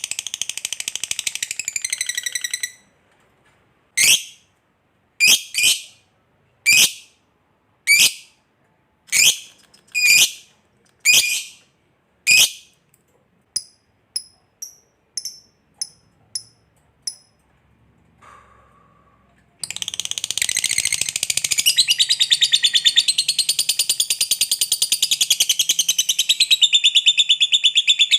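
A lovebird calling. It opens with a rapid high-pitched chatter, breaks into single sharp chirps about once a second that fade to fainter quick chirps, and about two-thirds in launches into a long unbroken chattering trill: the 'ngekek panjang' long trill prized in fighter lovebirds.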